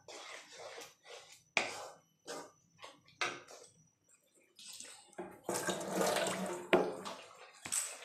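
Wooden spatula stirring thick, wet paneer bhurji masala in a non-stick kadai: a run of separate squelching scrapes, then about halfway a faster, louder stretch of stirring with a couple of sharp knocks of the spatula against the pan.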